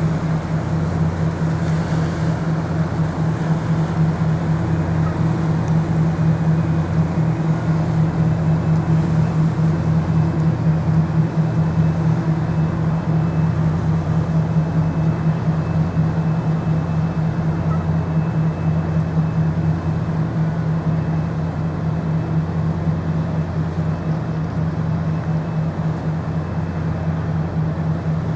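Boat engine running steadily: a low, even drone with a quick throb.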